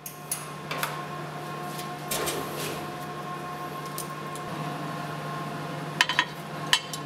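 3D printer running with a steady hum and a faint whine, while its metal build plate is handled and set into place: a scraping slide about two seconds in and a few sharp clicks, the clearest near the end.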